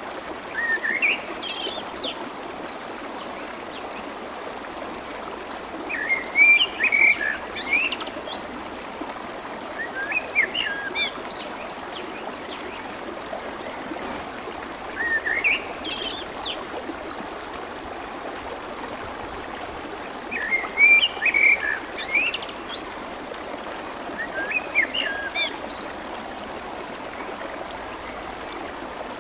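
Clear water flowing and babbling steadily, with a songbird singing short phrases of rising, twittering chirps about every four to five seconds.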